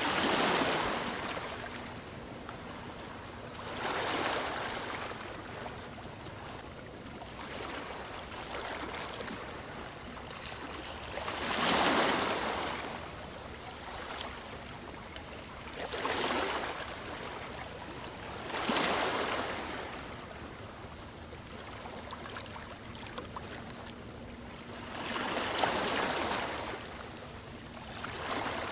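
Ocean waves breaking and washing in, surging at irregular intervals of a few seconds, with a steady hiss of surf between the swells.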